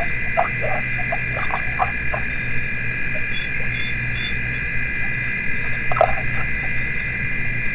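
A steady, high-pitched chorus of calling animals at a waterhole, with short lower calls scattered through the first two seconds and again about six seconds in.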